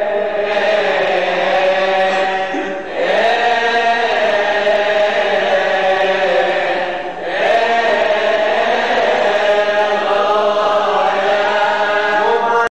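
A Coptic priest chanting the Gospel in a man's voice: long, drawn-out melodic phrases with slow glides in pitch, pausing for breath about three and seven seconds in. The chant stops abruptly at the very end.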